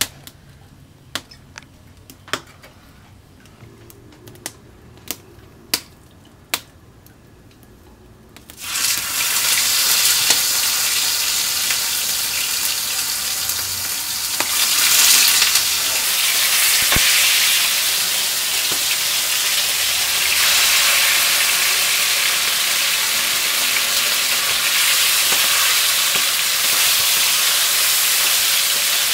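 A few sharp clicks, then about eight seconds in a loud sizzle starts as pork chops are laid into hot oil in a plow-disc pan, and the meat keeps frying steadily. The sizzle swells briefly around fifteen seconds as more chops go in.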